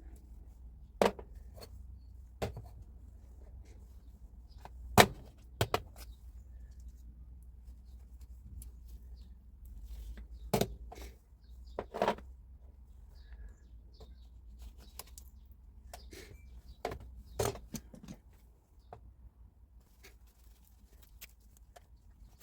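Tools and parts being handled during a rotary hammer repair: scattered sharp clicks and knocks, the loudest about five seconds in, over a faint low hum.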